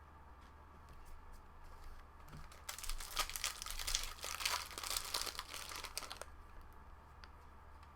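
A 2016 Bowman Jumbo baseball card pack wrapper being torn open and crinkled for about three seconds, with a few faint handling clicks before it.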